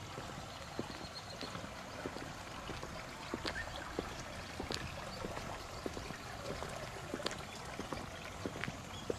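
Footsteps on a stone path, sharp irregular steps a second or so apart, over a steady rush of running water.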